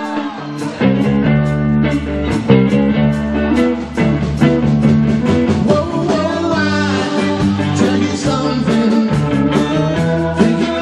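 Live rock band playing electric guitars, bass guitar and drum kit. The full band comes in with the drums and bass about a second in, then keeps a steady beat.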